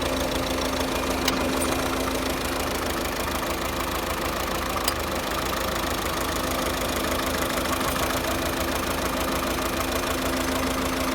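2009 Volvo S40 1.6-litre diesel engine idling steadily, with the misfire and weird noise that the owner never traced to a cause. Two sharp ticks, about a second in and about five seconds in.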